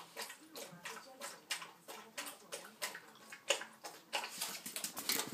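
Cockapoo puppy lapping water from a stainless steel bowl, quick wet laps at about three a second.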